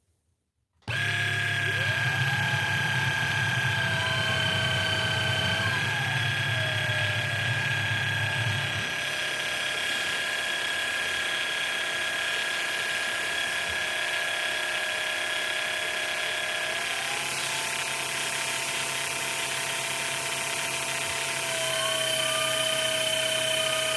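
VacLife VL732 cordless stick vacuum's brushless motor starting about a second in and running with a steady high whine during a sealed-suction test. The whine's pitch rises and falls back a few seconds in, rises again near the end, and a low buzz underneath stops about nine seconds in.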